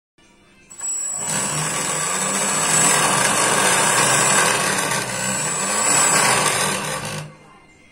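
Homemade electric jet engine (an electric ducted fan in a tube) spinning up about a second in and running with a loud rushing whine and a steady high tone. Its speed rises and falls twice as the throttle knob is turned, then it cuts off about seven seconds in.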